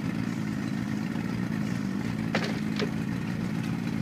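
Boat motor running steadily at an even pitch, with two short sharp knocks a little past halfway.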